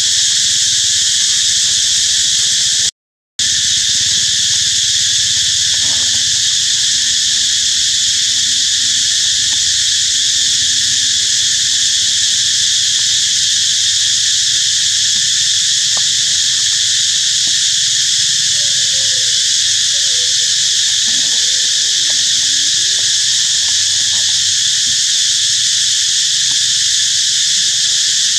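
Loud, steady chorus of insects buzzing without a break; the sound cuts out for a moment about three seconds in. A few faint wavering animal calls come through about two-thirds of the way in.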